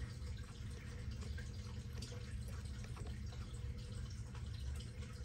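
Faint scattered clicks and scrapes of a small brass SMA adapter being threaded by hand onto a Baofeng UV-5R handheld radio's antenna connector, over a steady low room hum.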